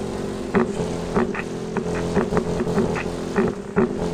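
Subwoofer driven by a homemade transistor pre-subwoofer amplifier, playing bass-heavy music with a quick, punchy beat of several hits a second.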